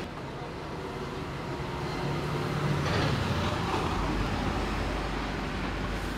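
Street traffic noise: a motor vehicle's engine rumbles past, swelling about two seconds in and loudest around three seconds in.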